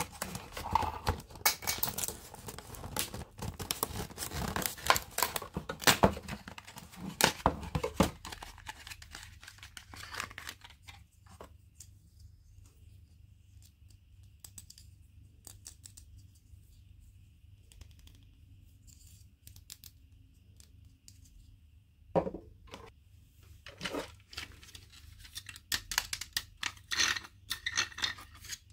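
Toy packaging being torn open and crinkled by hand: a busy run of crackles and rips, then a long quiet stretch through the middle, then more tearing and crinkling near the end.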